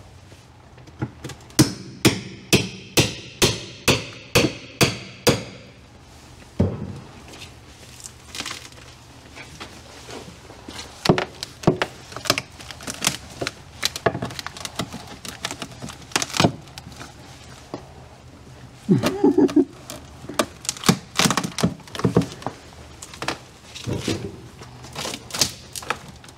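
Steel pry bar driven under rotten fiberglass-tabbed plywood: a run of about ten sharp ringing strikes, two a second, then scattered knocks and cracking as the rotten wood and fiberglass are pried loose.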